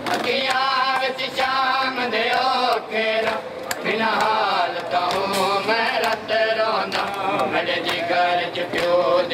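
Mourners chanting a Muharram lament together, crossed by sharp, uneven slaps of hands striking chests in matam.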